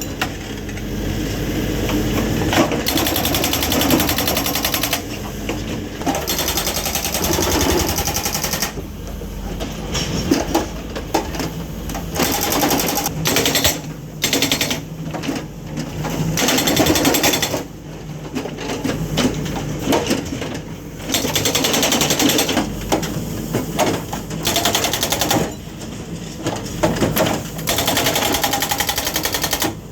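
MST backhoe loader's hydraulic breaker hammer pounding in rapid blows, in stretches of a few seconds that stop and start again several times, with the machine's engine running underneath.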